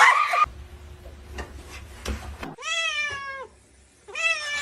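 A cat meowing: one long meow about two and a half seconds in, then a shorter meow near the end.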